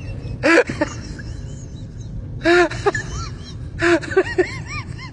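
Short, high-pitched squeaky vocal notes, each rising and falling, coming in three quick clusters: one about half a second in, then two more in the second half, some starting with a breathy burst.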